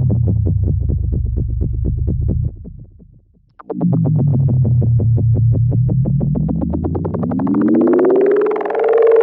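Synthesized cartoon-style comedy sound effects: a low buzzy electronic tone that dies away about two and a half seconds in, then after a brief gap a second buzzy tone that dips and then slides slowly up in pitch, peaking near the end.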